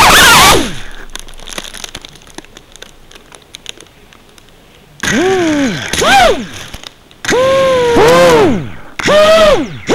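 Small FPV whoop drone's brushless motors and propellers: the high whine cuts out half a second in as it crashes and the props spin down, then faint clicks while it lies upside down. From about halfway on comes a string of short whine bursts, each rising then falling in pitch, as crash-flip (turtle) mode spins the motors to try to flip it back over.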